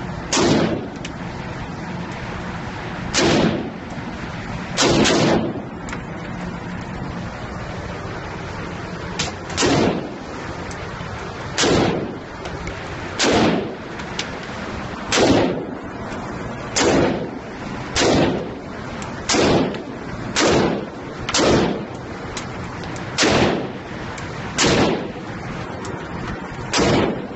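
Rifle fired as single shots in an indoor shooting range, about fifteen shots spaced roughly one to two seconds apart, each trailing a short echo off the range walls.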